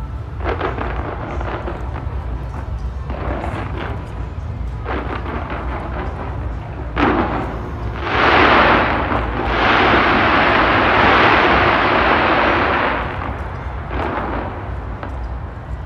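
Fireworks going off: bangs and crackling bursts every second or two, building into a loud, dense stretch of crackle from about halfway through for around five seconds, then dropping back to scattered bursts, over a steady low rumble.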